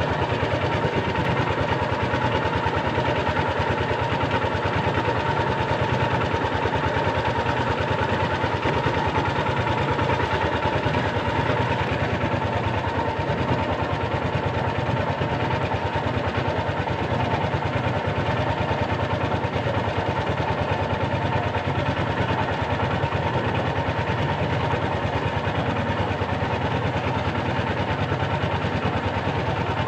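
Small fishing boat's engine running steadily, pushing the boat along at trolling speed.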